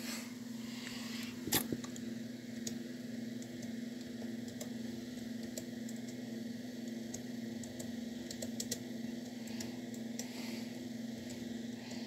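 Scattered light clicks from a hand working a computer mouse and keyboard, the loudest a sharp knock about one and a half seconds in, over a steady low hum.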